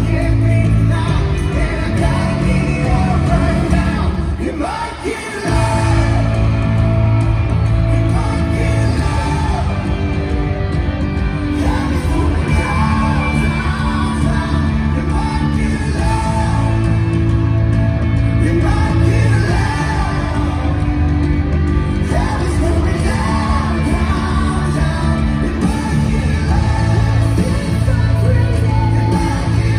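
Live worship band and singers performing an upbeat song through an arena sound system, with shouts from the crowd. The music dips briefly about four to five seconds in, then comes back in full.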